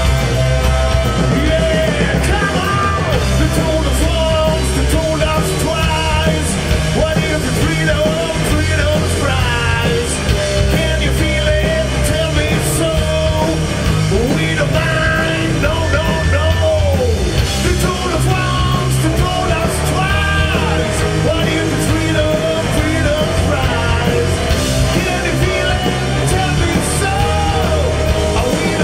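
Heavy rock band playing live and loud, with electric guitars, bass and drums, and a man singing hard into a microphone over them.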